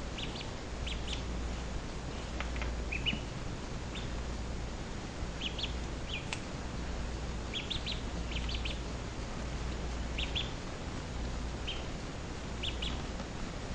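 A duckling peeping: short, high cheeps in little clusters every second or two.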